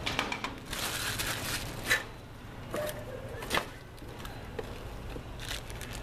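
Plastic packaging and cardboard rustling and crinkling as parts are taken out of a box, with a few sharp knocks.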